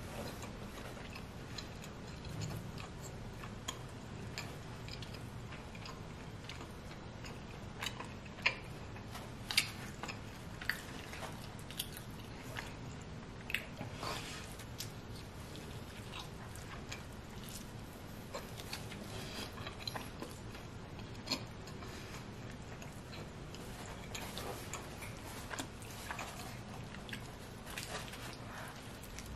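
Close-up mouth sounds of someone biting into and chewing a giant pepperoni pizza slice: scattered short, sharp crust crunches and mouth clicks over a steady low hum, the loudest about eight to ten seconds in.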